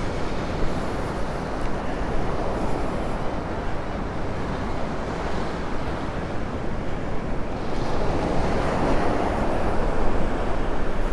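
Small Gulf surf breaking and washing up a sandy beach, with wind on the microphone. The surf grows louder about eight seconds in.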